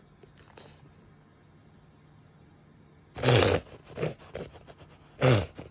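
French bulldog reverse sneezing: loud, harsh forced inhalations through the nose, each dropping in pitch. The first comes about three seconds in and is followed by two shorter ones, and another loud one comes near the end.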